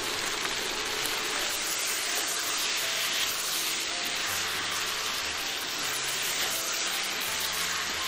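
Beef, king oyster mushroom and green pepper stir-frying in a hot wok: a steady sizzle.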